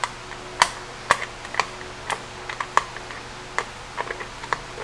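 Short, sharp clicks and taps, irregular and about two a second, as hands work the plastic head housing of a Motorguide Xi5 trolling motor during reassembly.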